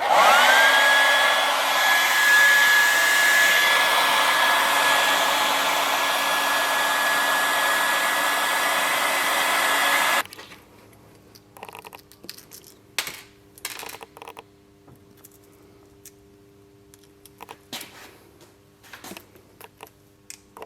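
Heat gun switched on: its fan spins up with a rising whine into a steady blowing hiss, heating the GoPro Hero 8's lens cover to soften the adhesive holding it. It cuts off suddenly about ten seconds in, leaving faint clicks and scrapes of small-tool work on the camera.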